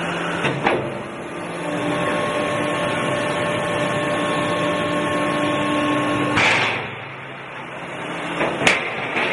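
Ermaksan HVR CNC hydraulic guillotine shear running, with a steady machine whine of several held tones. A brief hissing rush comes about six and a half seconds in, and a sharp knock near the end.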